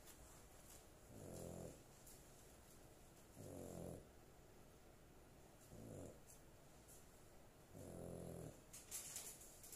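A sleeping dog snoring faintly: four short, low, pitched snores about two seconds apart.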